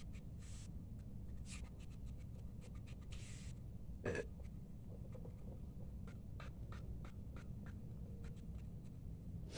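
Light scattered clicks and scratching from small items and packaging being handled, over a steady low hum, with one sharper knock about four seconds in.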